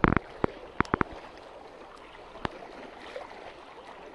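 Water sloshing and lapping around a small boat, with a short loud burst at the very start, a few sharp knocks in the first second and another about two and a half seconds in.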